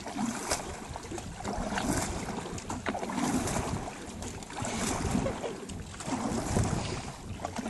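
Two single-bladed wooden paddles dipping and pulling through river water from a wooden boat, the splashing swelling with each stroke about every one and a half seconds, over steady wind noise on the microphone.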